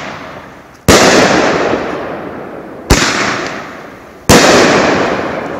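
A 500-gram, 16-shot consumer fireworks cake firing, with aerial shells bursting overhead. Three sharp bangs come about a second in, about three seconds in and just past four seconds. Each trails off in a long fading rush of sound.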